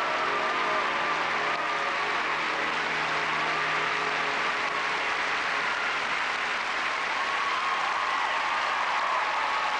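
Large audience applauding steadily in an ice arena. The last held notes of music fade out under the clapping in the first few seconds.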